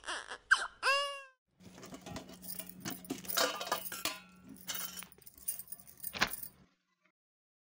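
Light metallic clinking and rustling as a hand rummages among the stainless steel cups of a spice box, with a short falling cry near the start.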